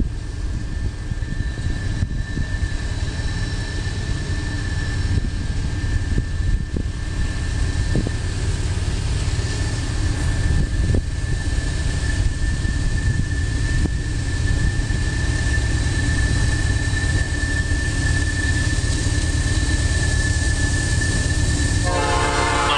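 Norfolk Southern freight train approaching behind AC44C6M locomotive 4113: a steady low rumble that grows slightly louder, with a thin steady high tone over it. Near the end the locomotive's Nathan P5 five-chime air horn starts to sound.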